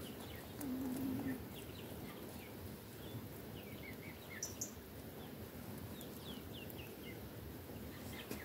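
Domestic hens foraging in their run: a short, low, even hen croon about half a second in, then scattered brief falling chirps, over a steady outdoor hiss.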